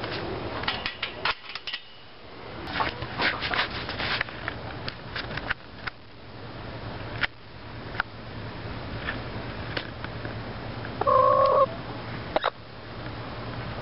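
Backyard hens close to the microphone: scattered clicks and knocks, then near the end one loud, held hen call lasting under a second.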